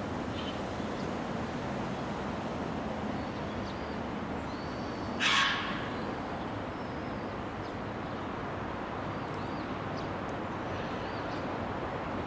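Outdoor ambience with a steady hum of distant background noise. About five seconds in comes one short, harsh call, like a crow's caw, and faint high bird chirps come and go.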